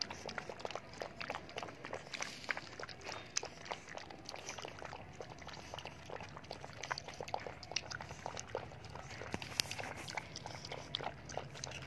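Two pug puppies lapping and licking watery cereal porridge from paper bowls: a steady run of quick, irregular wet clicks.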